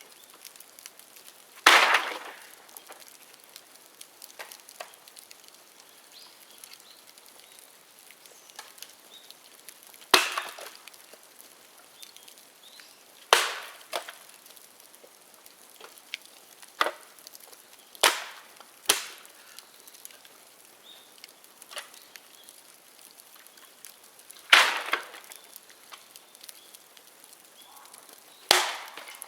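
Dead bamboo burning in a bonfire: about eight loud, sharp cracks at irregular intervals as the culms burst in the heat, over a low steady crackle.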